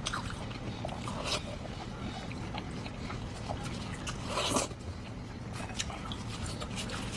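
Close-miked eating sounds: scattered wet clicks and smacks of chewing, with a louder bite or slurp about four and a half seconds in.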